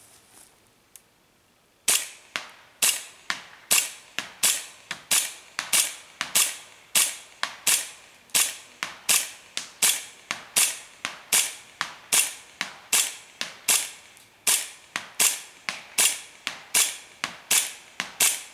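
Cybergun FNX-45 Tactical gas blowback airsoft pistol firing a long, steady string of shots, each a sharp pop with the slide cycling, about one every half second to two-thirds of a second, starting about two seconds in.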